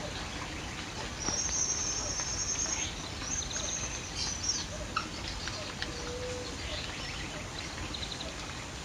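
Wild birds singing: a high, rapid trill about a second in that lasts about a second and a half, a second shorter trill soon after, and scattered short chirps, over a steady background hiss.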